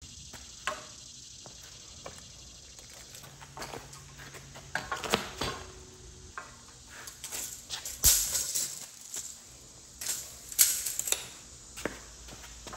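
Steel tape measure and metal speed square handled on a lumber board: scattered clicks, scrapes and knocks, with the loudest rattling bursts about eight and ten and a half seconds in.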